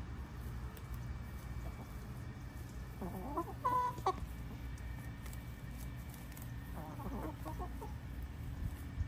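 Chickens clucking: two short bouts of calls, a louder one about three seconds in and a weaker one about seven seconds in, over a steady low background hum.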